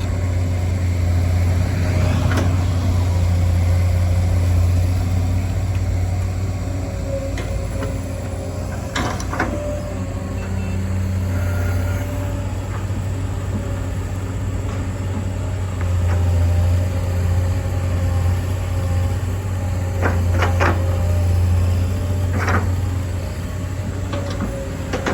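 Hydraulic excavator's diesel engine running steadily, swelling twice under load, with a few sharp metallic knocks from the working machine.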